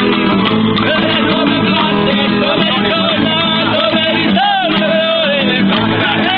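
Music: acoustic guitar with a singing voice.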